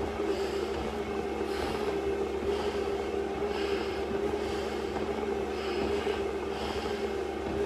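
Hard, fast breathing through an SCBA face mask and regulator: a hissing surge about once a second. Under it runs a steady machine hum.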